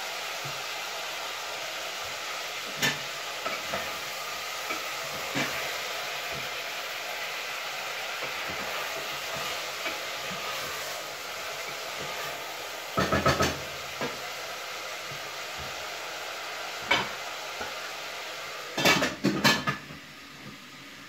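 Pots, lids and utensils clinking and knocking now and then over a steady hiss. A quick cluster of clatters comes about 13 seconds in and a louder one near the end, after which the hiss eases off.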